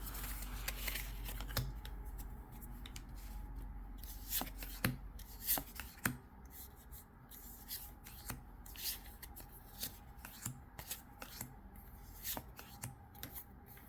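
Pokémon trading cards handled and flipped through one by one, making irregular soft clicks and slides of card on card.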